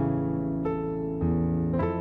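Background piano music, a slow melody with notes struck about every half second over sustained chords.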